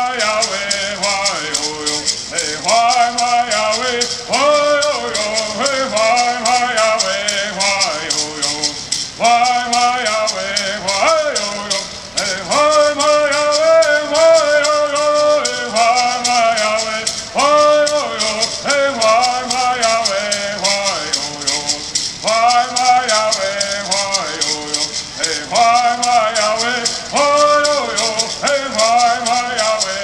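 Kumeyaay bird song: voices singing in repeated short phrases over the steady, fast shaking of gourd rattles.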